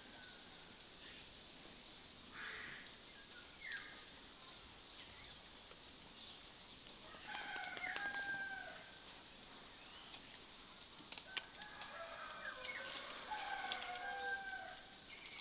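A rooster crowing, once about seven seconds in and again, longer, near the end, with shorter chicken calls earlier.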